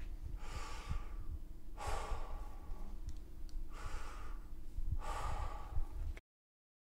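A man breathing deeply and slowly, four long breath sounds about a second and a half apart over a faint steady hum: the deep breaths taken during liver palpation, which bring the liver edge down to the examining fingers. The sound cuts off suddenly about six seconds in.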